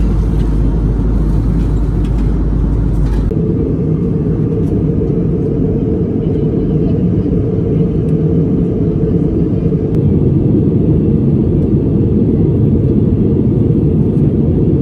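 Loud, steady low rumble of a moving vehicle, with an abrupt change in its character about three seconds in.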